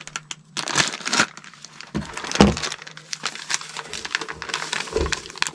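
A bag of refractory mortar powder being handled and set on a scale: irregular rustling and small clicks, with a soft thump about two and a half seconds in and another near the end.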